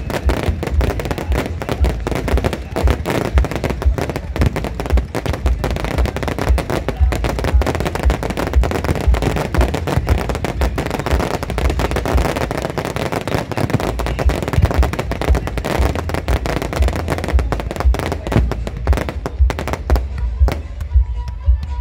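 Fireworks barrage: rapid, dense bangs and crackling from aerial shells and ground fountains, mixed with the show's music. Near the end the barrage thins out and the music is left.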